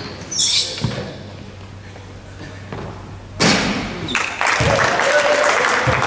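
Basketball game sounds in a gym: short high sneaker squeaks on the court and the ball thudding, then from about three and a half seconds in a louder, continuous spell of mixed noise and voices.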